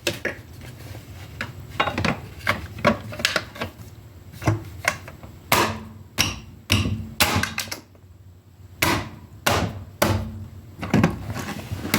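Hubcap being knocked into place on a car wheel: a dozen or more irregular sharp knocks, some ringing briefly.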